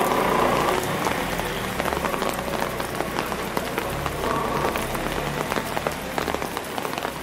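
Steady rain falling on wet pavement and parked cars: a constant hiss dotted with many small drop hits.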